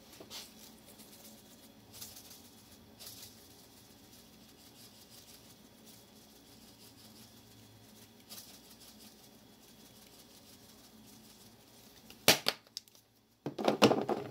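Spice containers being handled while seasoning ground beef: a few faint taps, then near the end a sharp click and a burst of shaking rattle.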